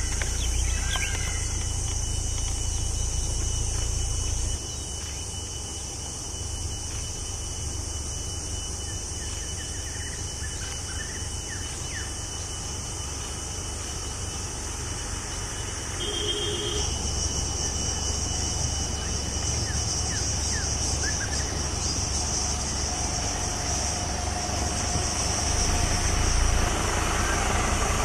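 Motorcycle engine idling with a low, steady rumble, under a steady high-pitched drone. The rumble drops in level about four seconds in and comes back up about seventeen seconds in.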